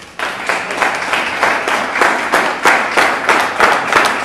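Loud audience applause that starts suddenly, dense hand-clapping with some claps falling into a rough even rhythm.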